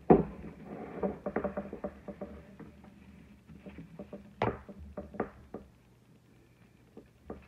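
Metal baking tin set down on a table with a knock, followed by a run of light clicks and rustles as wired ribbon is pulled and handled around it, with another sharp knock about four and a half seconds in.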